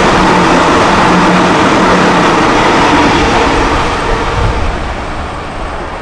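Sydney Trains double-deck electric train running past at speed: a loud, steady rush of wheels on the rails with a faint hum underneath. The noise slowly fades and turns deeper over the last couple of seconds.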